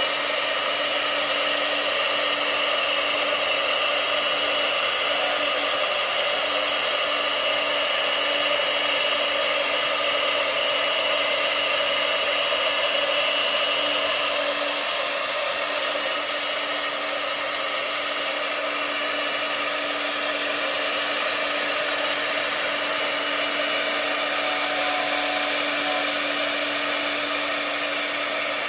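CNC router spindle running steadily while milling styrofoam (expanded polystyrene), a constant motor whine over steady cutting noise, a little quieter from about halfway through.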